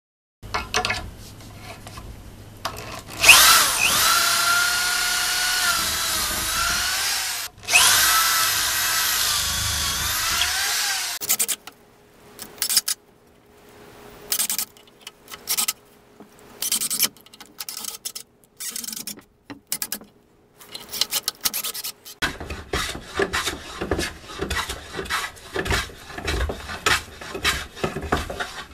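Cordless drill driving screws through pine 2x4 seat slats in two long runs, its motor whine rising and falling with the load, then in short bursts. From about 22 seconds in, a hand plane shaves the pine in quick, rasping strokes.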